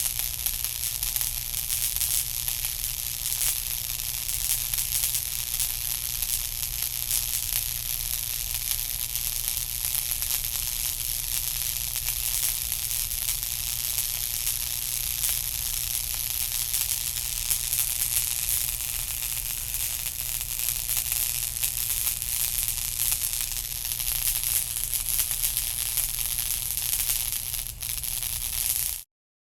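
Sci-fi sound effect of steady crackling static hiss over a low hum, cutting off suddenly near the end.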